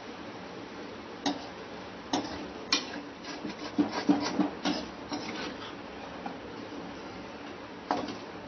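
Metal spatula clinking and scraping against a metal kadhai and a steel pot as cooked vegetable curry is scooped out. There are sharp separate clinks, a run of scraping and clatter in the middle, and a quieter stretch before a last clink near the end.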